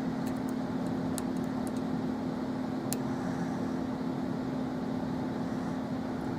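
Faint, scattered metallic ticks of a lock pick working the pins inside a euro cylinder, over a steady background hum.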